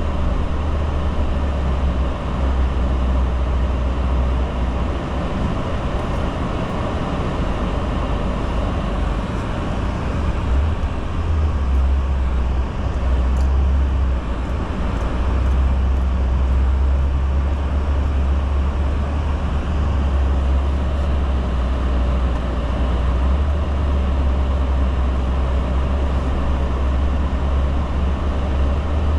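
Vehicle driving, a steady low engine drone with road noise that holds throughout.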